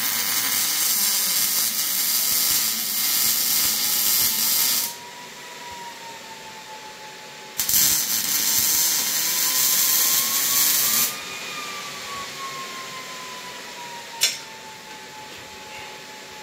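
MIG welder arc welding steel tube: two long stretches of steady welding sizzle, the first about five seconds and the second about three and a half, with a pause between, then one short sharp blip near the end.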